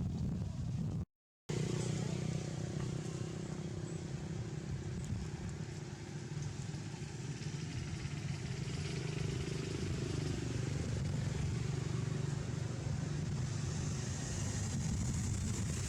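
A motor vehicle engine running steadily with a low rumble, with a brief total dropout about a second in.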